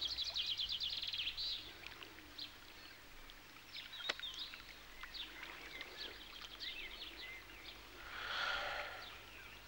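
Songbirds singing in the background: a rapid high trill at the start, then scattered short high chirps. A brief soft swell of noise comes near the end, over a faint steady low hum.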